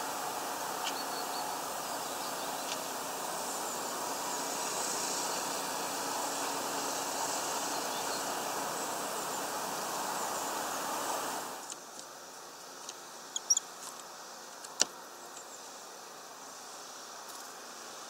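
Steady rushing of distant road traffic that drops away abruptly about two-thirds of the way through. In the quieter remainder come a few sharp ticks and brief high chirps from small birds at a feeder.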